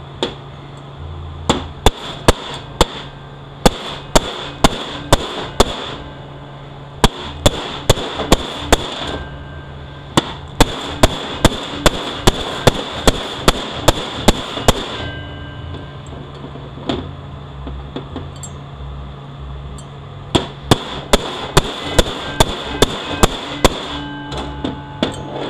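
Hammer striking a bushing cutter to cut a bushing out of a 6L80E transmission. It comes in runs of sharp metal blows, about two to three a second, with short pauses between the runs.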